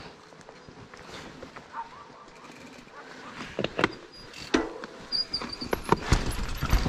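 Mountain bike riding over a rocky, rooty trail: scattered knocks and rattles of the bike over stones begin about halfway through. Wind rumble on the helmet microphone builds near the end as speed picks up.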